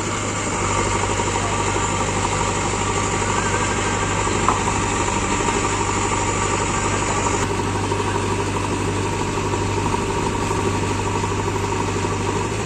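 Heavy diesel machine engine running steadily at a low, even speed, with a single sharp click about four and a half seconds in.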